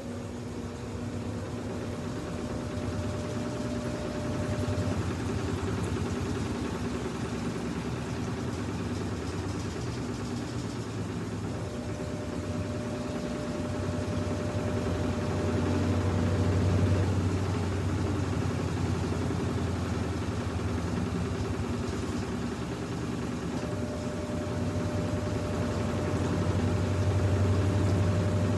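Brastemp BWU11 washing machine spinning: a steady motor-and-drum hum that swells and eases in cycles of roughly twelve seconds, with a faint whine coming in for about five seconds each time.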